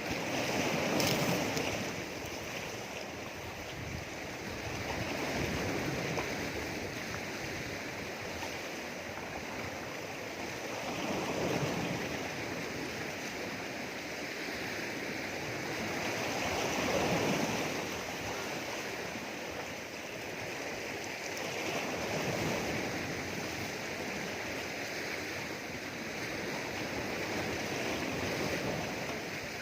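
Sea waves washing over rocks: a continuous rush of surf that swells louder every five or six seconds as each wave comes in.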